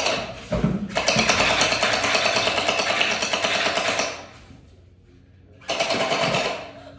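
Electric gel blaster firing on full auto: a rapid mechanical rattle in bursts, with a short one at the start, a long one of about three seconds, then a pause and a shorter burst near the end.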